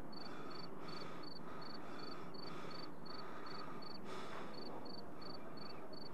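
A cricket chirping steadily, about three short chirps a second with a brief pause about four seconds in, over a quiet night-time hiss.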